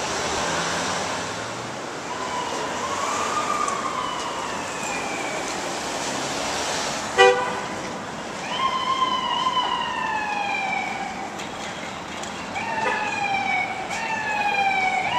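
Emergency vehicle siren sounding over city street traffic: slow wailing sweeps that rise and fall, turning into quicker falling sweeps about once a second near the end. A short, loud horn blast about seven seconds in.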